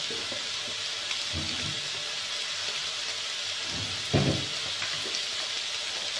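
Cubed pork belly frying in a wok, a steady sizzling hiss. A soft low thump comes a little over a second in, and a louder one about four seconds in.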